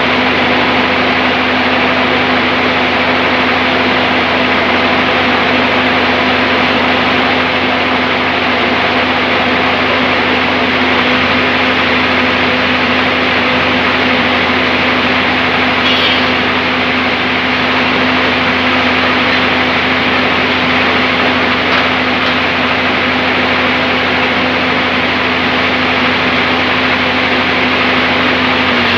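Sawmill saw machine running with a steady, loud hum that holds unchanged throughout.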